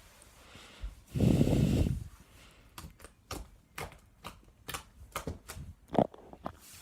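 Sticky slime being squished and stretched by hand, making a series of irregular wet clicks and pops, with a louder squelch about a second in.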